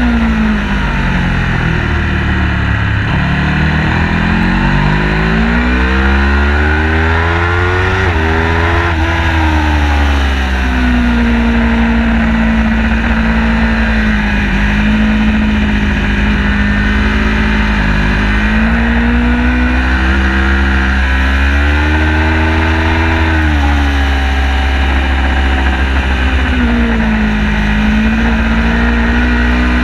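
Car engine under load on a racetrack lap, its pitch dropping and climbing again as it slows for corners and accelerates out, and holding steady along the straighter stretches. A constant low rumble lies underneath.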